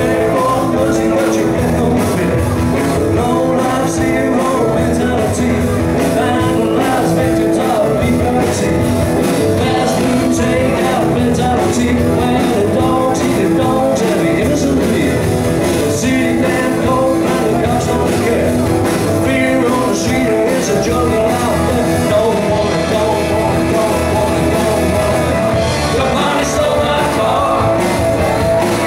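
A rock band playing live on amplified electric guitars, electric bass and drums, with a lead vocal.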